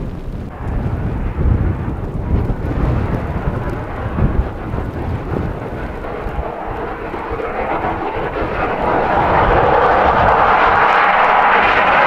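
Wind gusting hard against the microphone in a blizzard. Then a vehicle approaches through blowing snow, its engine and tyre noise swelling steadily louder over the last few seconds.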